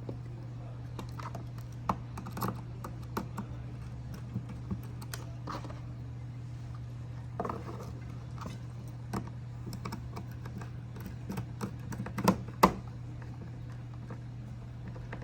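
Irregular small clicks and taps of hands handling wires and terminal screws on an 8-pin relay base, the loudest pair of knocks near the end, over a steady low hum.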